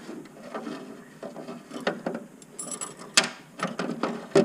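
Light clicks and rattles of metal battery tie-down hooks being handled and tried in place against the battery box, with a sharper knock about three seconds in and another near the end.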